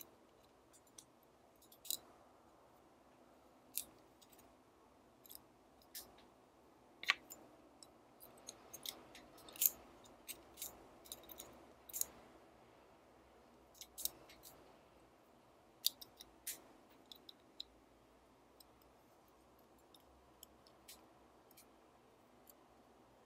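Small metal parts and tweezers clicking and tapping against a stripped Leica M3 camera body while its shutter-speed control module is fitted, in irregular sharp ticks that come thickest about a third of the way in, over faint room hiss.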